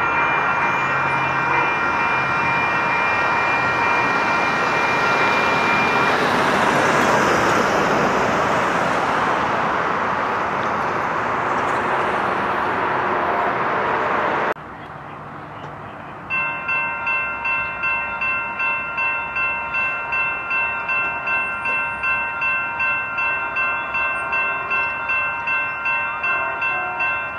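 A train passing with its horn sounding a held chord over the running noise for the first several seconds; the noise goes on until it cuts off suddenly about halfway through. After a short lull, a railroad crossing bell rings steadily at about two strokes a second.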